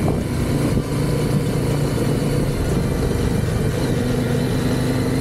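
Motorcycle engine running steadily at an even speed, without revving.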